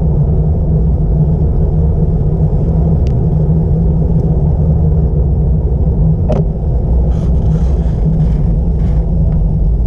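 Wind rushing over the microphone on a fast bicycle descent, a steady low rumble throughout. A single sharp click a little after six seconds in, then a few faint ticks.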